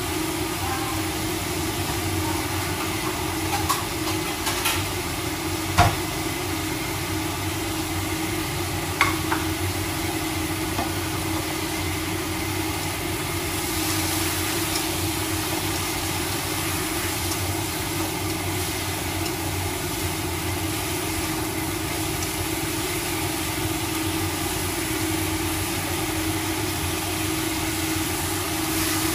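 Vegetables sizzling while being stir-fried in a frying pan over a gas burner, over a steady hum. A few sharp taps of the spatula against the pan come in the first ten seconds.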